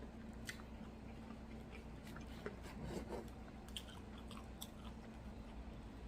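Chewing of a fried chicken and waffle sandwich: soft, irregularly spaced mouth clicks and smacks over a faint steady hum.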